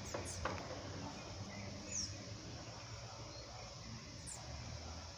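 Small birds giving a few brief, very high chirps, each dropping in pitch, with the clearest about two seconds in, over a steady background hiss.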